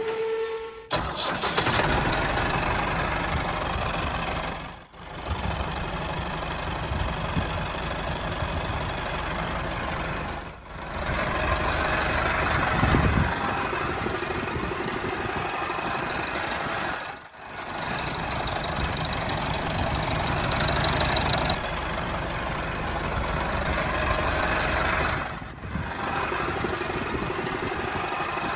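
Tractor engine running steadily, its sound dipping briefly four times.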